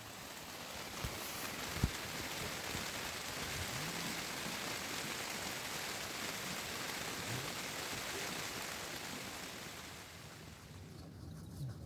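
Heavy rain falling steadily, a dense even hiss that eases off about ten seconds in, with one sharp knock about two seconds in.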